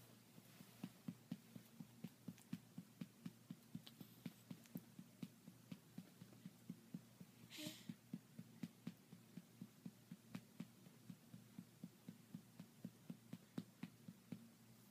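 Soft, rhythmic patting on a baby's back to bring up a burp, about three pats a second. A brief short sound cuts in about halfway through.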